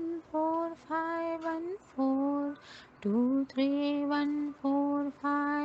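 A woman's voice chanting the digits "two three one four five one four" in a sing-song monotone, each syllable held on one of a few steady notes, with the sequence repeated.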